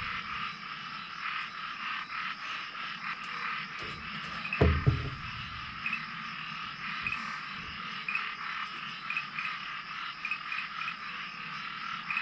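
Frog chorus: many frogs calling together in rapid, overlapping repeated calls that go on without a break. A single low thump about four and a half seconds in stands out above it.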